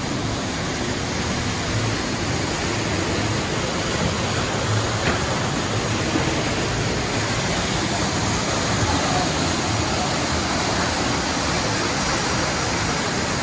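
Steady rushing of a waterfall pouring down artificial rockwork.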